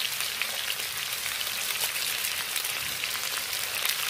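Chicken feet frying in oil in an aluminium wok: a steady sizzle with constant fine crackling.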